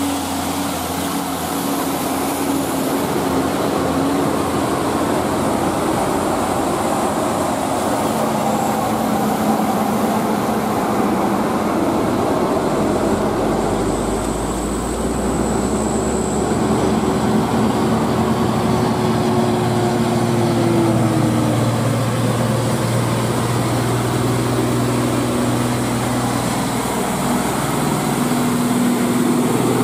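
Heavy diesel trucks, among them a Nissan Diesel dump truck and a Mercedes-Benz tractor unit pulling a loaded trailer, running up an uphill grade one after another, with a steady engine drone and road noise. One engine note holds for several seconds and then drops away about twenty seconds in.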